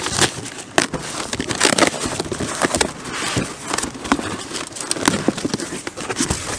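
Corrugated cardboard box being torn open by hand: irregular crackling rips of cardboard and tape, with the flaps scraping and rustling as they are pulled apart.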